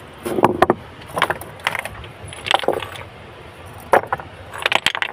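Rounded river stones knocking and clattering against each other as they are turned over by hand, in several short bursts of clacks.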